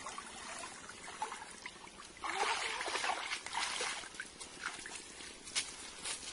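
Water splashing and trickling as a mosquito net is lifted out of a shallow stream and hauled through the water by people wading; the splashing gets much louder about two seconds in, then settles into smaller splashes and drips.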